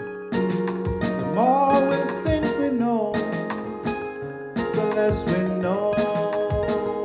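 Live song without words: an acoustic guitar strummed in a steady rhythm under held keyboard synthesizer chords. A melody line slides up and down in pitch twice.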